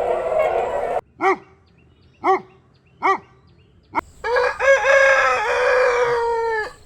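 A rooster clucks three short times, about a second apart, then gives one long cock-a-doodle-doo crow that falls off at the end. Before this, a steady rushing noise cuts off suddenly about a second in.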